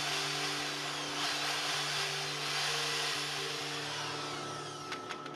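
Corded handheld power tool running with a steady whirring rush, then switched off about five seconds in with a couple of clicks.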